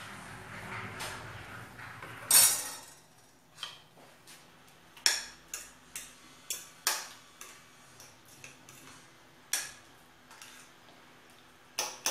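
Metal cutlery clinking against a bowl as crepioca batter of egg and tapioca is stirred: sharp, irregular clinks, the loudest about two seconds in, then a quick run of them around the middle.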